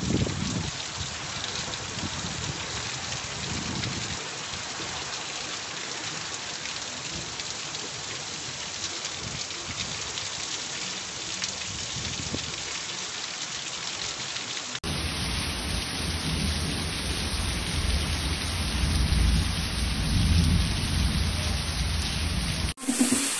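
Steady heavy rain falling on a cobbled street, a dense even hiss. About fifteen seconds in, the sound cuts to another rain recording with a deep rumble under the hiss that swells and fades.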